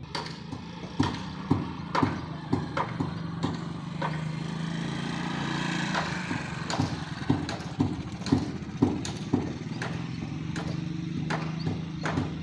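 Steady machinery hum with sharp knocks, irregular at first and then about two a second.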